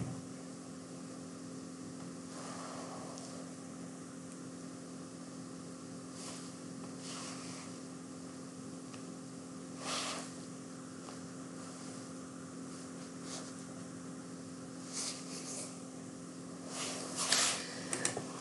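Steady low electrical hum with several pitched lines, under quiet room tone, broken by a few faint short noises.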